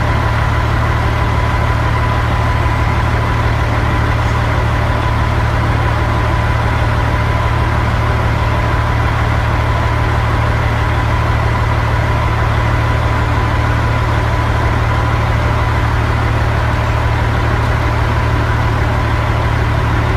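An engine idling steadily: a constant low hum with a faint steady whine above it, unchanging throughout.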